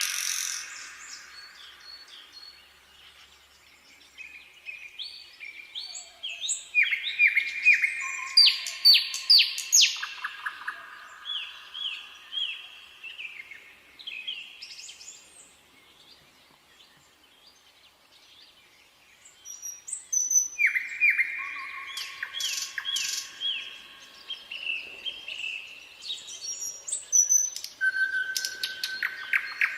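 Nightingale singing in two bouts of song. Each bout is a run of rapidly repeated notes, fast sweeping whistles and click-like rattles, with a pause of several seconds between the bouts.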